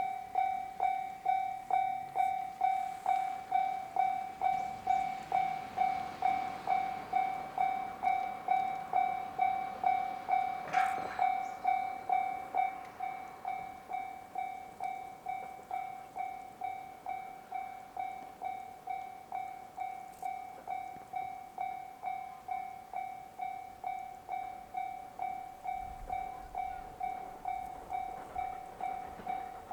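Japanese railway level-crossing warning bell starting up and ringing, one electronic ding repeated evenly about two to three times a second. About twelve seconds in it carries on more quietly, while a faint rushing noise that swelled under it in the first seconds has faded.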